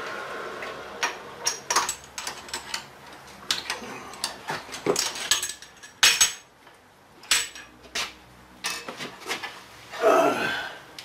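Metal tools and parts clinking and knocking against the cast-iron drill press table as the work is handled, a string of separate sharp clinks. Near the end comes a short scrape that falls in pitch.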